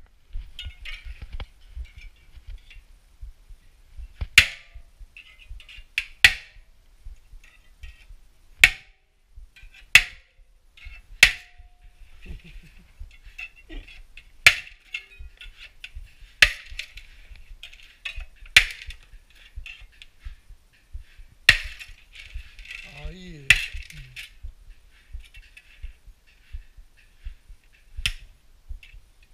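Pliers and metal parts clicking and clinking at the hub of a Zipp 404 carbon wheel while its hub play is worked on. There is a sharp knock about every two seconds, with softer scraping and rattling in between.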